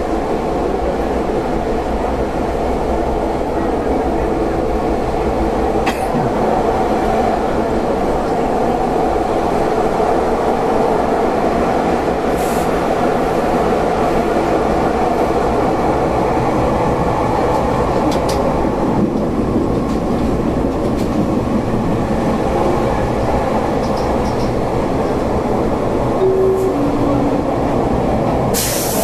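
Athens metro train running, heard from inside the carriage: a steady rumble of wheels and motors with a few sharp clicks from the track. A sudden loud hiss starts near the end.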